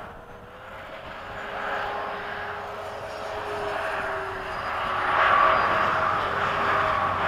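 Electric ducted fan of a Freewing 90mm F-15 model jet, a 13-blade rotor on a 1600kv inrunner motor, whining as the jet makes a pass. It grows louder to a peak about five seconds in.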